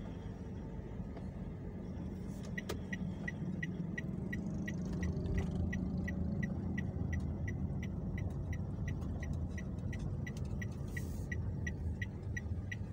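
Steady low road and engine rumble heard inside a moving car's cabin. About two and a half seconds in, a turn-signal indicator starts ticking evenly at about three ticks a second and keeps on.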